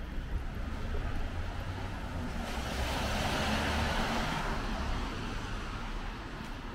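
A car passing on the street: its tyre hiss swells to a peak about halfway through and fades away, over a steady low traffic rumble.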